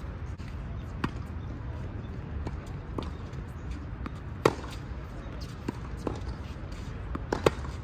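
Tennis rally on an outdoor hard court: sharp, separate pops of racket strikes and ball bounces every second or two. The loudest pop, about four and a half seconds in, is the near player's forehand. All of it sits over a steady low background rumble.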